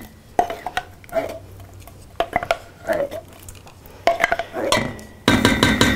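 A wooden spatula scraping thick canned chili out of a tin can over a stainless steel stockpot, with soft scrapes and clinks. Near the end comes a louder metallic clank that rings on briefly.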